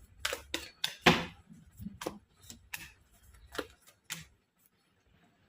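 A tarot deck being handled and shuffled: a run of sharp, irregular card snaps and clicks, a few a second, that stop about four seconds in.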